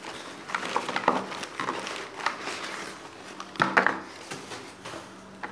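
Hard plastic fingerboard ramp handled and set on a wooden table, with paper wrapping rustling: a string of light knocks and rustles, loudest about three and a half seconds in, over a faint steady hum.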